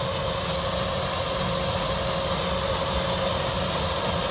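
Kubota rice combine harvester's diesel engine running steadily under load while it cuts ripe rice, a constant rumble with a steady whine over it.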